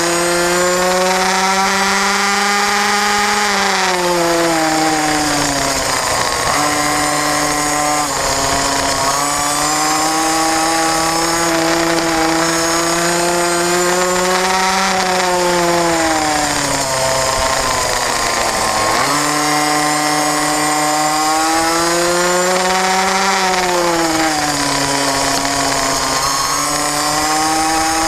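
Small racing motorcycle engine heard from on board at race speed, its note climbing slowly and then falling away again several times as the bike accelerates down the straights and slows for the corners.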